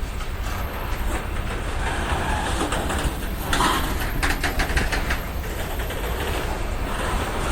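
BNSF freight cars rolling past with a steady low rumble. About three and a half seconds in comes a quick run of rapid clicks, as the wheels pass over rail joints.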